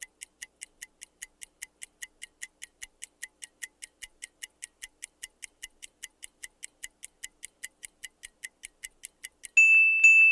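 Quiz countdown timer sound effect: a clock ticking about four times a second, ending near the end in a loud ringing ding as time runs out.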